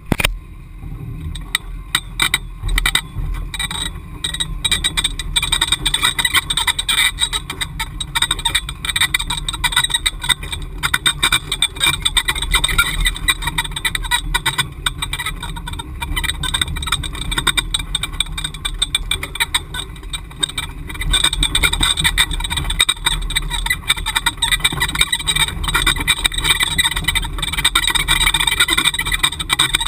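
Ford Bronco's engine running at low, steady revs as it crawls up a rocky off-road trail, with constant irregular rattling and knocking as the vehicle jolts over ruts and rocks.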